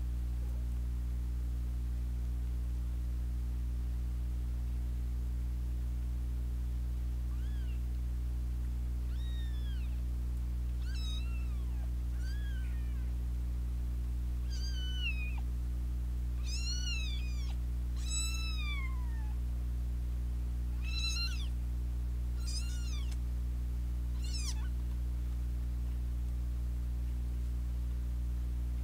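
Kittens mewing: about ten short, high-pitched mews, each rising and then falling in pitch. They start several seconds in and come thickest in the middle, over a steady low hum.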